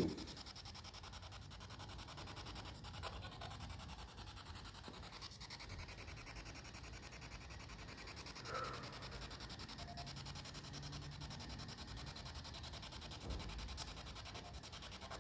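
Faint, steady, choppy static from a spirit box sweeping rapidly through radio frequencies, with a couple of brief tone blips around the middle.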